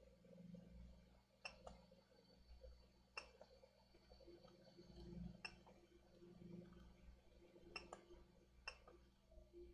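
Near silence: faint room tone with a low hum and five faint, sharp clicks at uneven intervals.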